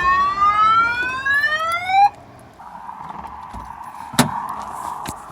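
Electronic car alarm sounding a repeated rising whoop tone for about two seconds, then cutting off suddenly. A fainter steady tone follows, with one sharp click about four seconds in.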